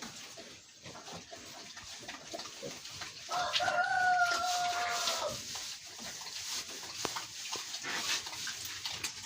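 A rooster crowing once, a single call of about two seconds starting a little over three seconds in, over faint scattered knocks and scrapes.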